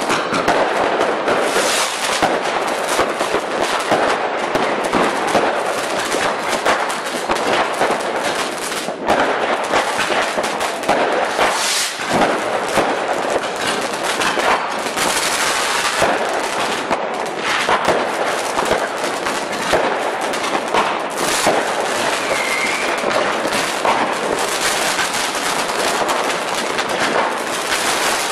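Fireworks going off in a dense, continuous barrage of crackling pops, with no pause in the firing.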